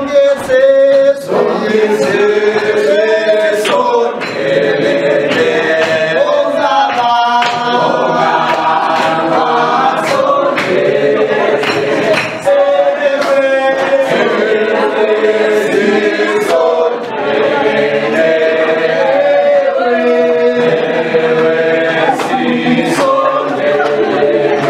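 A group of voices singing a sacred song together in harmony, holding long notes. A sharp tap sounds roughly once a second, keeping time.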